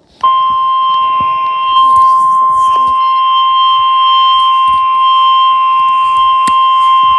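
Emergency alert warning tone announcing a severe thunderstorm warning. It is a single steady, loud, high-pitched tone that starts abruptly a moment in and holds without a break, matching the NOAA Weather Radio warning alarm tone.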